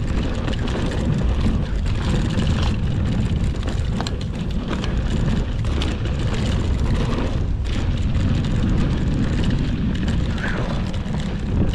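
Mountain bike rolling fast down a dry, dusty dirt trail: a steady rumble of wind on the action-camera microphone and tyre noise, with frequent short knocks and rattles from the bike over rocks and bumps.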